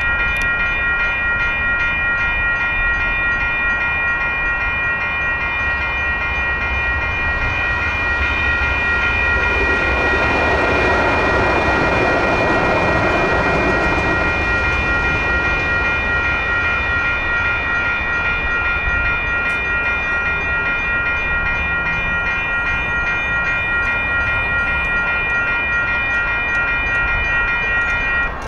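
Railroad crossing bell ringing steadily while a light rail train passes over the crossing; the train's running and wheel noise swells in the middle and then fades. The bell stops near the end as the gates go up.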